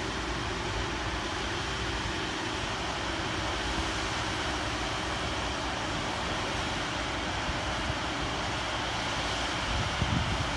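Class 230 D-train diesel multiple unit standing with its Ford Duratorq 3.2-litre five-cylinder diesel engines idling: a steady hum. Wind buffets the microphone briefly near the end.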